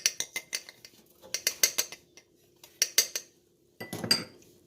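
A utensil stirring almond flour batter in a mug, clinking against the mug's sides in quick runs of taps with short pauses, then a heavier knock near the end.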